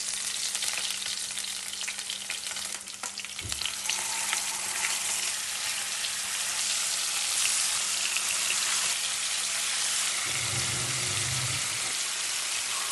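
Hot coconut oil sizzling and crackling in a frying pan as crushed ginger and garlic fry in it. The sizzle grows fuller about four seconds in.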